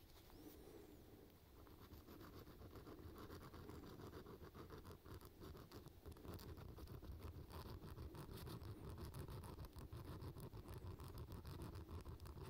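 Small handheld hook sharpener scraping against the hook points of a metal fishing lure: metal rasping on metal in many quick short strokes, louder from about halfway through.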